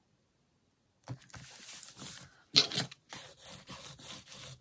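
Paper being rubbed flat against a book page with a small scraper, smoothing down freshly glued collage paper. It makes a run of scratchy rubbing strokes starting about a second in, with a louder paper crinkle about two and a half seconds in.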